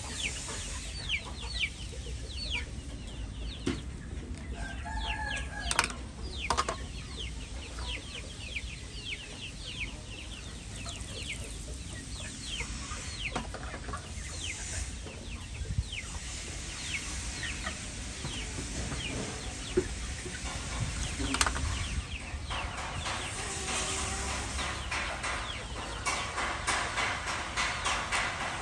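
Chickens clucking, with many short, high, falling chirps throughout and a few sharp knocks.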